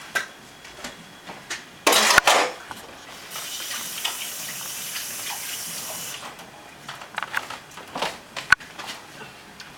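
A short loud clatter about two seconds in, then a kitchen tap running into the sink for about three seconds as a steady hiss of water, followed by a few light knocks.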